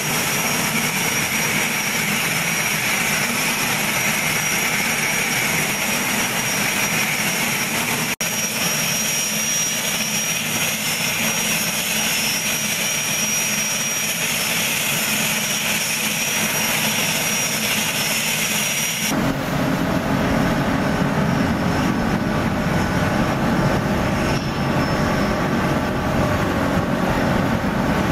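Twin-turbine Puma-type helicopter running with its rotors turning: a steady turbine whine over rotor noise. About two-thirds of the way through it gives way to a small boat's engine droning low with water rushing from its wake.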